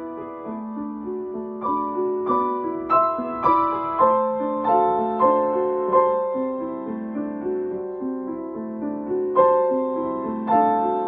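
Grand piano played solo: a slow, gentle piece of sustained chords, with new notes struck about every half second.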